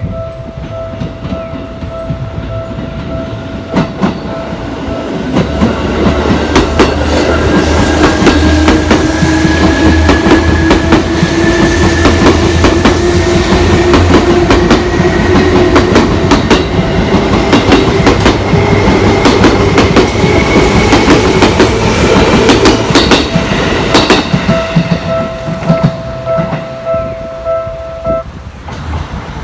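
A Seibu Railway electric train passes over a level crossing. Its wheels clack over the rail joints above a low rumble, and a motor whine rises slowly in pitch as it goes by. The crossing's warning bell rings a steady pulsing tone before the train arrives and again after it has passed, then stops shortly before the end.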